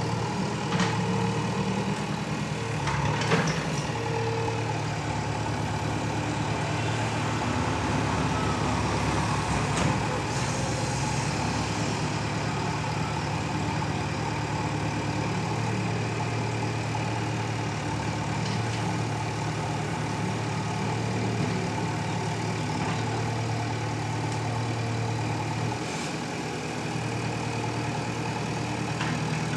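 Heavy diesel engine running steadily at a construction site, its low hum briefly dropping a little before the end.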